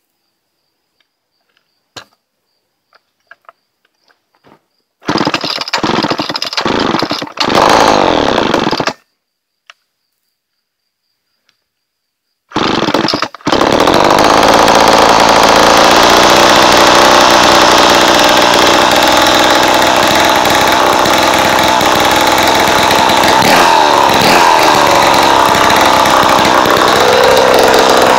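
Homelite XL-12 chainsaw's two-stroke engine, run with no muffler, being cold-started. It fires and runs for a few seconds about five seconds in, dies, then starts again about thirteen seconds in and keeps running loud and steady.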